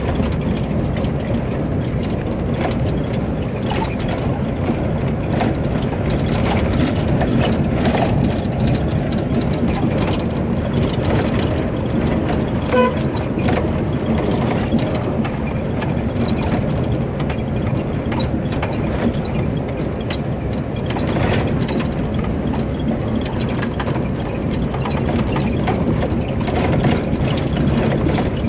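Suzuki Katana's small four-cylinder engine running steadily while driving, heard from inside the cabin, with continual rattling and knocking from the body and fittings over the rough lane.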